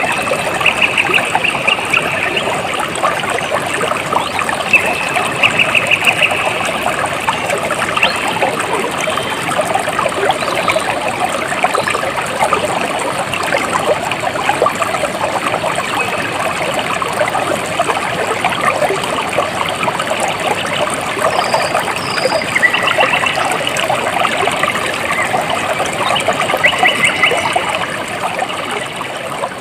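Running water trickling and babbling steadily, like a small stream. Four short, rapid, high-pitched animal trills are heard over it, one near the start, one after about five seconds and two near the end.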